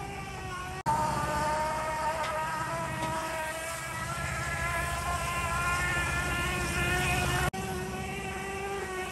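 Steady buzzing drone of a running motor. Its pitch shifts at sudden breaks about a second in and again near the end.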